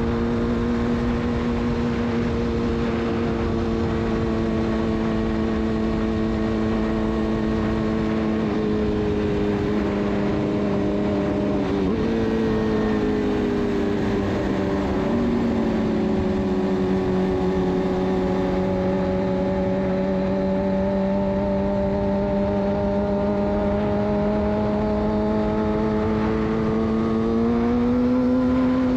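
Suzuki GSX-R600's inline-four engine running at steady high revs through a de-catted Yoshimura exhaust. The note dips and wavers about twelve seconds in, holds lower for a while, then rises again near the end.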